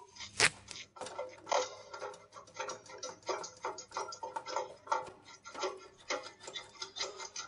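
Jubilee clip on an aircraft exhaust being undone, a rapid, uneven ticking as the worm screw is turned, with one sharper click about half a second in.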